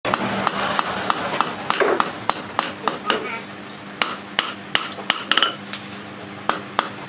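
Hand hammer striking red-hot coil-spring steel on a steel-post anvil, sharp metallic blows at about three a second with a short pause about halfway through.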